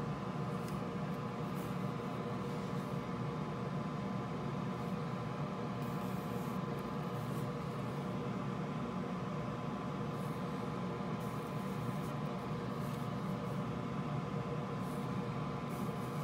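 Steady background hum and hiss with a faint, constant high-pitched tone, and a few soft ticks now and then.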